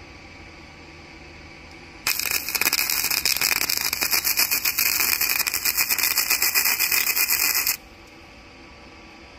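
Flux-core wire welding arc from a 110V flux-core welder sizzling and crackling for about six seconds as a tack weld is laid on steel plate, starting about two seconds in and cutting off abruptly when the trigger is released.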